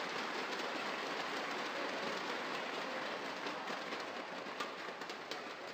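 Crowd applauding in a large hall, a dense steady patter that begins to fade near the end.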